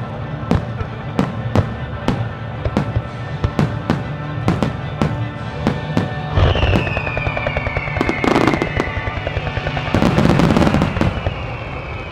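Star mine fireworks barrage: a rapid run of shell bursts about three a second, then a falling whistle about six seconds in. Dense crackling follows, a louder, denser volley of bursts comes about ten seconds in, and a second falling whistle comes near the end.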